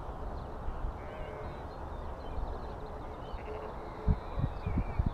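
Wind rumbling on the microphone of a camera hanging from a tethered blimp, with faint birdsong from below. A few low thumps come near the end.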